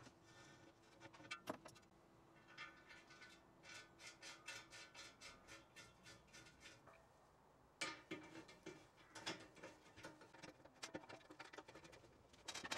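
Faint clicks of small steel hand tools on a steel box section: a tap wrench turning a tap to thread holes, then a screwdriver driving hinge screws. First a run of quick, even clicks, then scattered sharper clicks from about eight seconds in.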